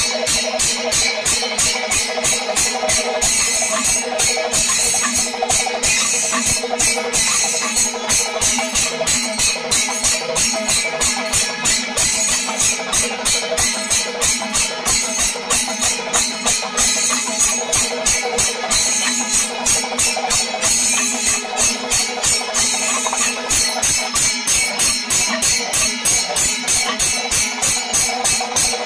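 Panchavadyam, the Kerala temple ensemble: maddalam drums and ilathalam hand cymbals beat a fast, even, driving rhythm without a break, with kombu horns sounding steady notes over it.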